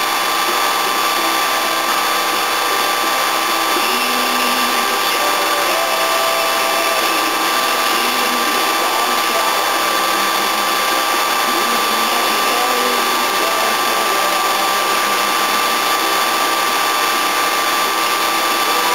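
8mm film projector running steadily, its motor and film-advance mechanism making an even mechanical whir with a few fixed tones.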